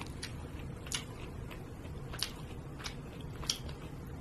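Quiet eating sounds: a few sharp clicks, roughly a second apart, over a low steady hum.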